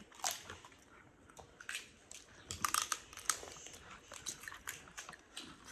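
Cooked shellfish shells being cracked and peeled by hand, with chewing: irregular sharp crackles and snaps, a quick cluster of them a little under three seconds in.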